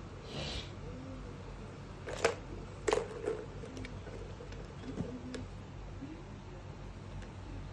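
Sharp plastic clicks and knocks from a kitten batting at a plastic ball-track tower toy: two loud clicks a little over two seconds in and about a second apart, and a fainter one later, over a steady low room hum.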